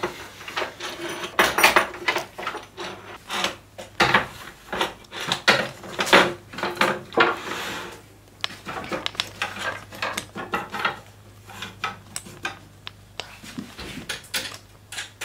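Wooden Steinway model B grand piano keys clacking and knocking as they are set one by one onto the rail pins of the key frame: a quick, irregular run of knocks, thinning out in the second half.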